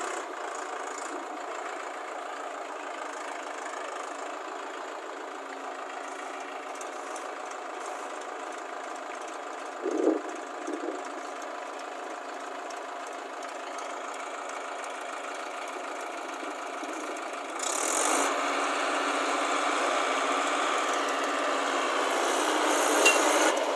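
Tractor diesel engine running steadily. A short, louder sound comes about ten seconds in, and the engine grows louder about three-quarters of the way through.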